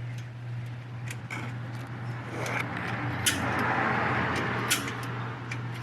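Several sharp metallic taps of a hammer on a punch, marking a differential bearing cap so it goes back on the same side; the two loudest taps come about a second and a half apart, over a rough noise that swells in the middle. A steady low hum runs underneath.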